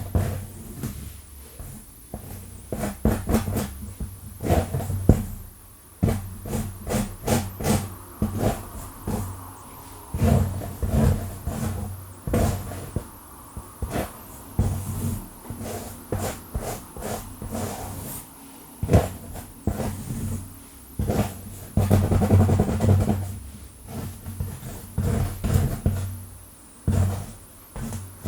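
Long fingernails scratching fast through hair and over a scalp close to the microphone: quick scratch strokes in irregular clusters, several a second.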